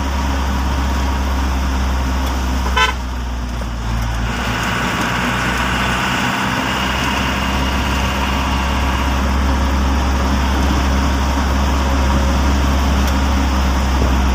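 Steady low rumble of a vehicle's engine and road noise heard from inside the cabin, with a short horn toot about three seconds in.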